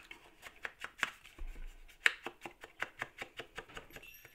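Sponge dauber tapped rapidly on an ink pad and dabbed against the edges of a cardstock panel, about five light taps a second, with a short break a little after a second in.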